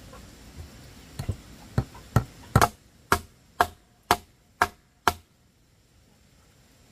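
Hammer blows on a wooden plank, about ten strikes at roughly two a second, the later ones with a short ring, stopping about five seconds in.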